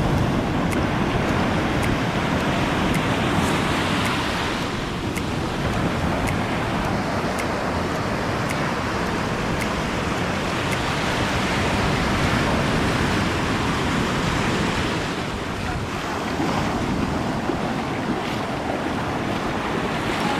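Waves breaking and washing on a beach, with wind buffeting the microphone; a steady rushing noise that swells and eases.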